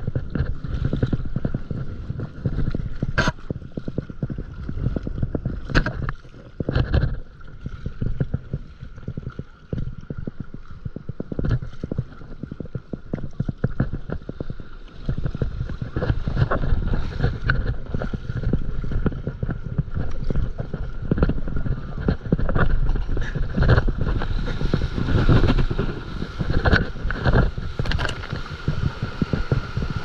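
Seawater splashing and rushing against a stand-up paddleboard under paddle strokes, with wind on the microphone. The rush grows louder and hissier in the last few seconds as the board rides a wave with whitewater foaming along its side.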